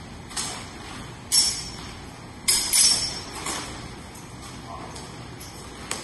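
Steel longswords clashing in sparring: a series of sharp metallic strikes that ring briefly. The loudest comes about a second and a half in, followed by a quick pair about two and a half seconds in, with lighter clashes before and after.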